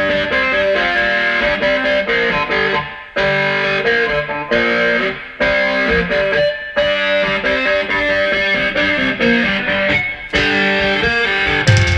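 Rock music with a distorted electric guitar playing a melodic line; heavy bass comes in near the end.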